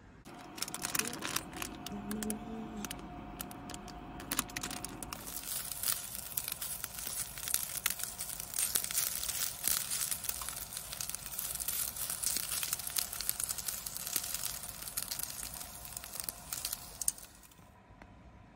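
Edamame patties sizzling as they pan-fry in a small pot: a dense crackle of many small pops that stops abruptly near the end.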